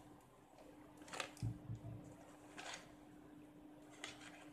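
Quiet room with a steady low hum, broken by a few faint short clicks and a soft low thud: small handling sounds.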